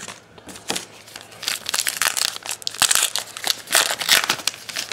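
Wrapper of a Topps Allen & Ginter trading card pack crinkling as it is torn open by hand. It makes a rapid run of crackles from about a second and a half in until near the end.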